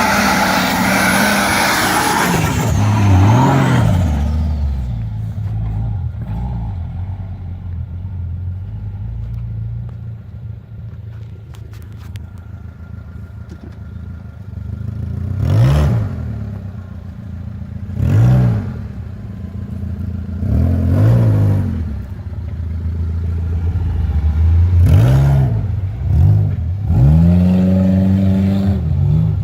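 Turbocharged TB42 straight-six petrol engine. It runs loud at high revs for the first few seconds, then settles to a low steady run, then is revved in about six short rising-and-falling bursts, closer together near the end.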